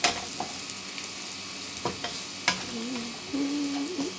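Sliced peppers, onion and chili sizzling in a frying pan as a wooden spatula stirs them, with three sharp knocks of the spatula on the pan. A wavering low hum comes in near the end.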